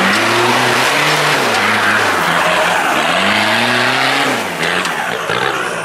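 Modified off-road 4x4 truck's engine revving hard under load, its pitch climbing and dropping in two long surges, with tyres spinning and throwing loose dirt as it claws up a steep dirt bank.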